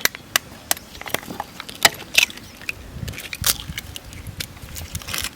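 Scattered sharp clicks and taps of raw eggs being cracked against a bowl's edge and broken into the batter.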